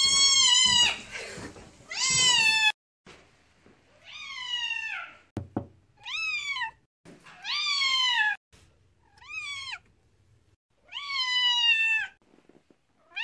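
A deaf long-haired white cat meowing loudly and repeatedly, about seven long calls that each rise and then fall in pitch. A single sharp knock comes between calls about five seconds in.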